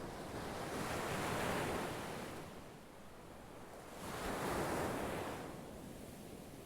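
Ocean waves washing in, two swells of surf a few seconds apart.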